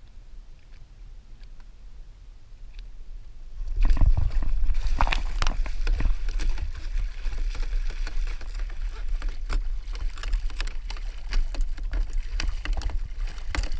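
A hooked mahi-mahi (dolphinfish) thrashing at the surface beside a plastic kayak: water splashing, with many sharp knocks and clatters, starting suddenly about four seconds in after a fairly quiet start.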